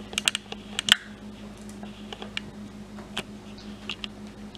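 A spatula clicking and scraping against a glass mixing bowl as thick cream cheese filling is scraped out into a pie crust. The light ticks come in a quick cluster about a second in, then spaced out singly. A steady low hum runs underneath.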